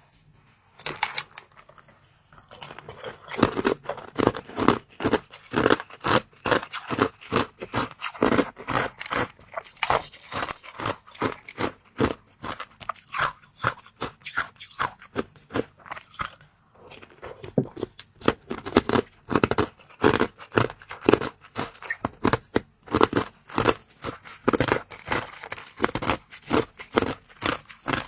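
Close-miked eating: biting into and chewing small molded treats, a dense run of crunches and clicks, briefly quieter near the start and again about two-thirds of the way through.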